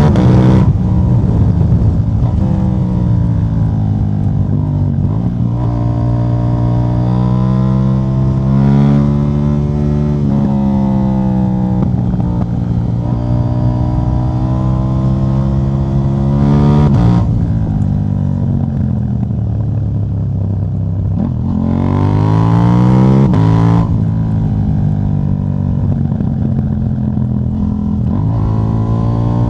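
KTM 790 Duke's parallel-twin engine with the catalytic converter removed, running loud through the decat exhaust. Its pitch climbs and falls several times, with two quick revs that drop off sharply.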